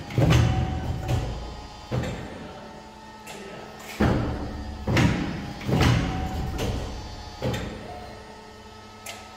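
Fuji 1320-4P paper and board cutting machine running: a series of sudden clunks, each trailing off in a rumble, about one a second with a short pause early on.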